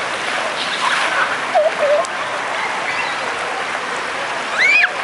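Waterpark noise: a steady rush of splashing water with many distant voices calling out, and one loud high-pitched shriek near the end.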